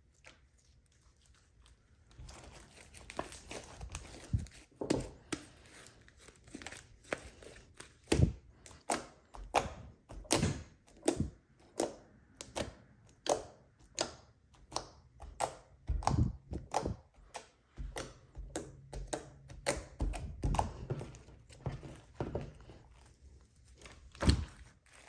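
Slime being mixed and squished by hand: a dense run of irregular sticky clicks, pops and soft thuds, several a second, starting about two seconds in.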